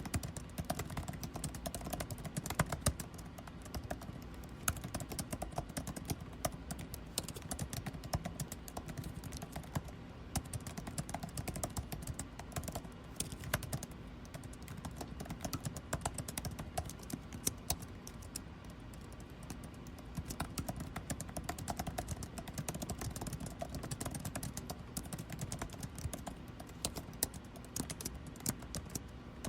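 Continuous typing on a computer keyboard, rapid irregular key clicks with brief pauses, over a steady low hum of air conditioning.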